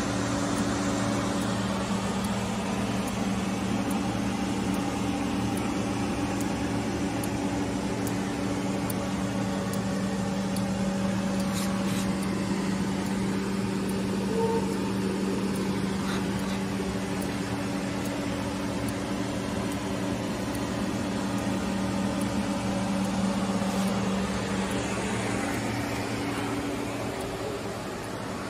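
Steady electrical hum with a rushing fan-like noise from the powered control cabinet of a Biglia B 750 CNC lathe, its transformer and drives energised. The hum weakens near the end.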